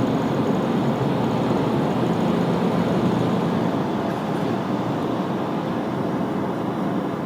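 Steady rumble and hiss of a vehicle in motion, with a low hum underneath.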